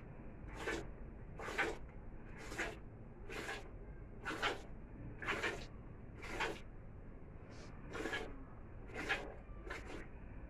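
Cow being milked by hand: streams of milk squirting into a plastic bowl, short hissing squirts about once a second, evenly paced.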